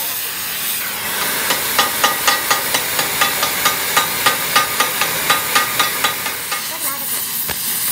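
Hand hammer striking the red-hot end of a truck's front axle, about twenty quick, ringing blows at roughly four a second that stop about six seconds in, over the steady hiss of an oxy-acetylene torch flame.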